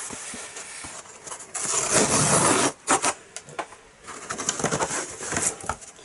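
Cardboard box and packing being handled and DVD cases lifted out. There is a stretch of rustling and scraping cardboard from about a second and a half in, lasting about a second, then a few light clacks of the plastic cases.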